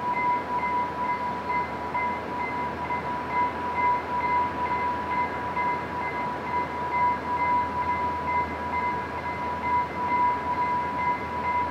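Electronic warning bell of a railway level crossing ringing in a quick, even repetition over a steady background hiss.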